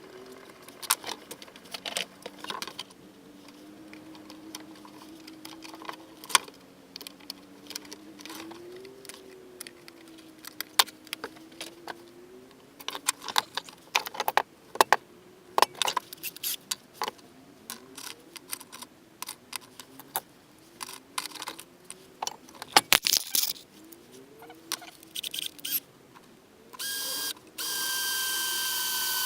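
Scattered clicks, taps and knocks of hand work on a metal-asbestos gasket sheet, with sharper knocks around the middle. Near the end a small power tool starts up and runs with a steady high whine.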